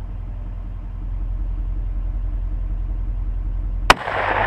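A single rifle shot about four seconds in, its report trailing off in a short echo. Before the shot there is a steady low rumble.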